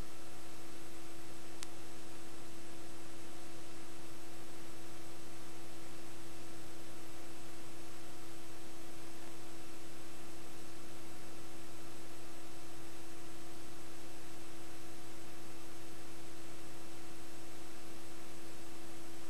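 Steady electrical hum with hiss on an otherwise empty soundtrack, with one faint click about a second and a half in.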